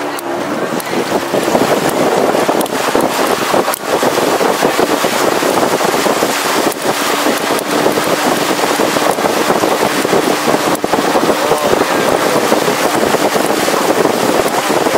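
Wind buffeting the microphone over the rush of river water past a longboat moving at speed: a loud, steady rushing noise, with a faint low hum in the middle.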